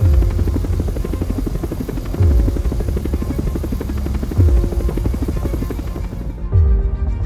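Cinematic soundtrack music with a fast pulsing rhythm and a deep falling bass hit about every two seconds; the bright high end drops away near the end.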